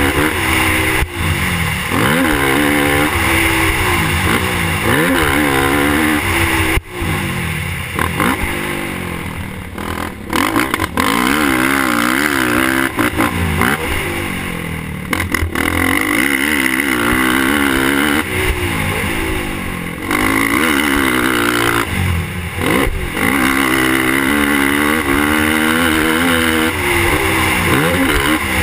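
Suzuki LTR450 quad's single-cylinder four-stroke engine under hard riding, revving up through the gears and dropping off again and again as the throttle is rolled on and off. There are short throttle-off dips several times.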